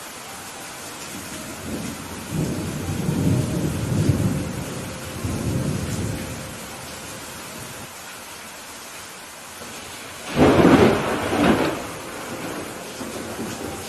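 Steady rain with thunder: a low rolling rumble from about two seconds in that lasts several seconds, then a louder, sharper thunderclap about ten seconds in.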